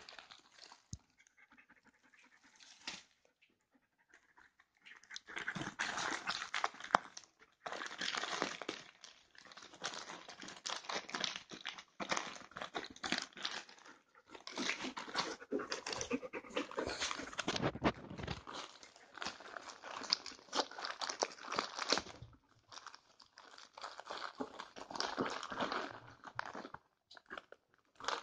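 Wrapping paper crinkling and crackling as a Groenendael (Belgian sheepdog) noses and tears through it to unpack a toy, mixed with the dog's breathing. The crinkling starts about five seconds in and goes on in long spells with short pauses.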